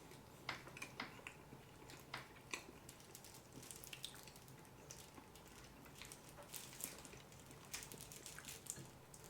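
Faint chewing of a carrot cake roll: soft, scattered mouth clicks and smacks, several a second at times.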